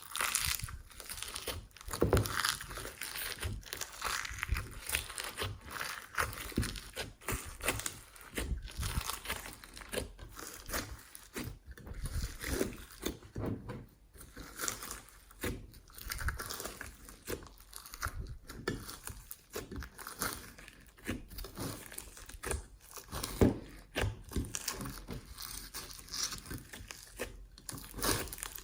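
Glossy slime being kneaded and squished by hand, giving an irregular stream of sticky pops, clicks and crackles.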